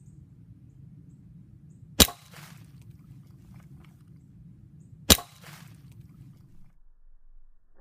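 Two shots from a Crosman Silhouette PCP air pistol, about three seconds apart, each a sharp crack with a short ring after it.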